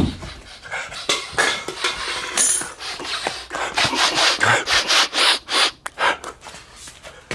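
A man panting and huffing close to the microphone, imitating a wild animal, in a run of quick noisy breaths.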